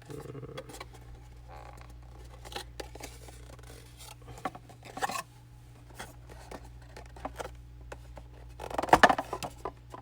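Hands working at tight packaging to get it open: scattered clicks, scratches and scrapes, with a louder stretch of handling about nine seconds in.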